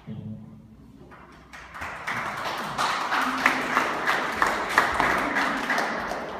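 An audience clapping, building up about two seconds in and dying away near the end, with a few voices mixed in.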